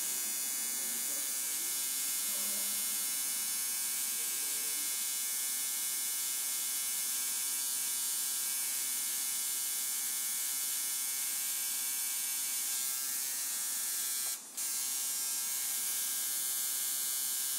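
Electric tattoo machine buzzing steadily, with a brief drop in level about fourteen seconds in.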